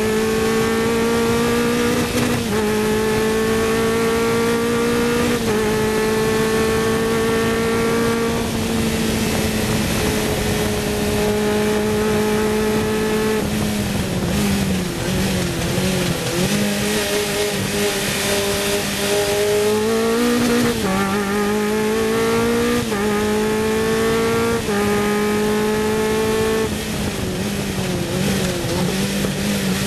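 Sports 2000 race car's engine heard onboard at racing speed: the revs climb and drop back at three upshifts in the first ten seconds, then fall and waver as the car slows through a corner, before climbing through several quicker upshifts again.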